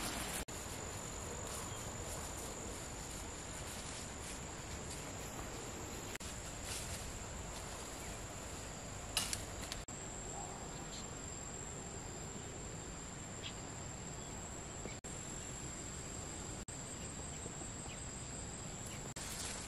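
Insects shrilling steadily on one thin, high, unbroken note over a faint outdoor background hiss, with a brief click about nine seconds in.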